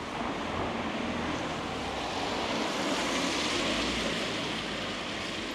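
A vehicle passing along the street: tyre and engine noise that swells to a peak about three to four seconds in, then fades.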